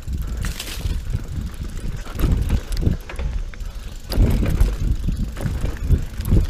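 Mountain bike rolling fast over a dirt singletrack: tyre rumble and the bike rattling over bumps, with wind buffeting the camera microphone. The rattling gets heavier about two seconds in and again about four seconds in.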